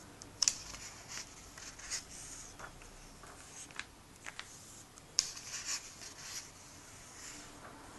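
Pages of a stapled comic book being turned and pressed flat by hand: paper rustling and crackling in a string of short, sharp bursts, loudest about half a second in and again just after five seconds.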